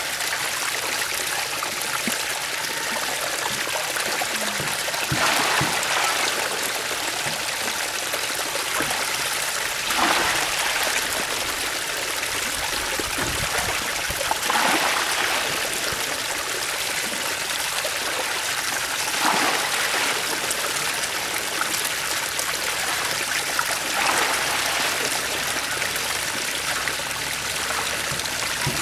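Water running steadily down a mud channel and pouring into a woven bamboo basket trap, a continuous splashing stream with louder surges about every four to five seconds.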